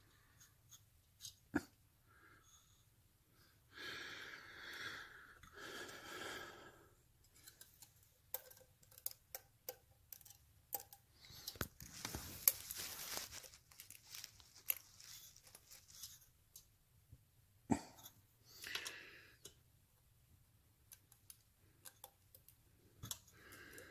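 Faint clicks, taps and scrapes of hand tools and metal parts being handled on a motorcycle engine's rocker gear during valve-clearance adjustment, with a few short stretches of rustling noise.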